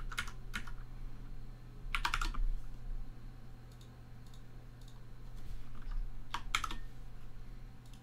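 Computer keyboard keys tapped in three short bursts, with a few fainter clicks between them, over a low steady hum.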